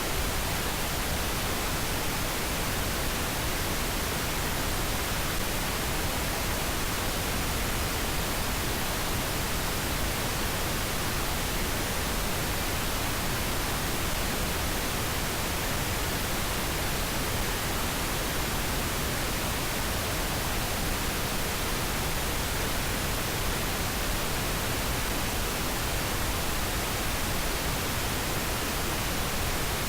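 Steady pink noise: an even, unchanging hiss spread across all pitches, with no breaks or changes.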